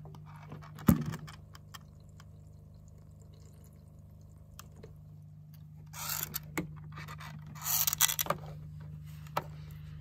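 Toy washing machine humming steadily on its drain cycle. There is a sharp knock about a second in, then two bursts of scraping, splashing handling noise around six and eight seconds in and a click near the end, as hands work at the machine.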